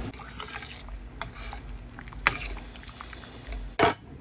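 A pot of boiling water bubbling and rumbling, with a few small clicks, then a stainless steel pot lid set down on the pot with a short, loud clank near the end.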